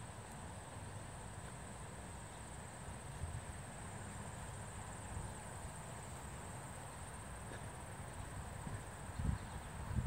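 Footsteps of someone walking, with low rumbling thuds that grow louder near the end, over a steady high insect trill.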